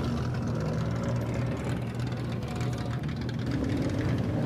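Lowered Nissan Laurel SGX's engine and exhaust at a low idle as the car creeps past at walking pace, a steady low engine note.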